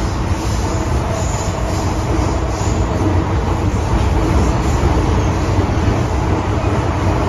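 Cabin noise of a Metro-Cammell M-Train, the MTR's modernised first-generation DC electric train, running between stations: a loud, steady low rumble of wheels and running gear.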